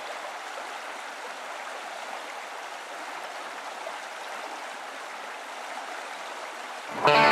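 Steady rush of running water, an even hiss with no distinct splashes. Guitar music comes in loudly near the end.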